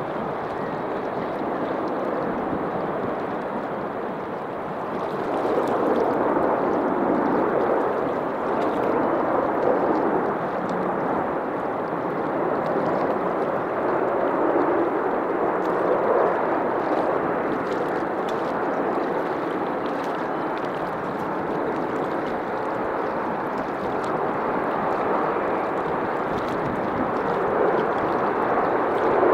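Heavy jet airliner landing: a steady rushing engine roar that swells about five seconds in and grows louder again near the end.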